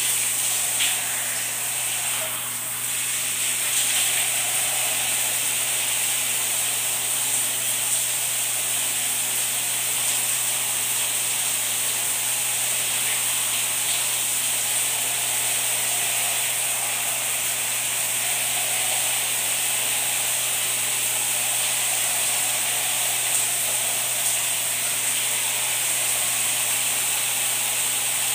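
Steady hiss of shower water running, with the scratchy scrubbing of a toothbrush on teeth over it.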